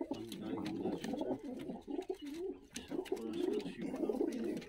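Several Georgian fighting pigeons cooing together, with steady, overlapping warbling coos that rise and fall in pitch.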